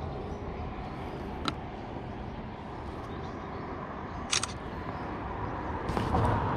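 Steady low rumbling outdoor noise, like wind on the microphone, broken by a few sharp clicks: one about a second and a half in, one at about four and a half seconds, and another near the end.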